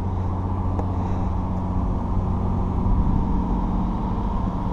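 A motor vehicle's engine running steadily at idle, a low even hum.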